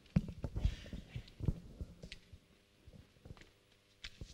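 Irregular low thumps and knocks of movement and handling close to the microphone. The loudest come in the first second and a half, with a short rustle about half a second in and a few fainter knocks near the end.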